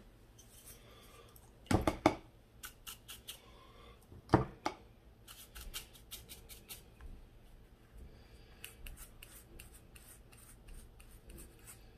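Painting tools handled on a foam plate: a wide flat paintbrush and a plastic paint palette knock twice, sharply, about two and four seconds in, then make runs of small quick clicks and scratches.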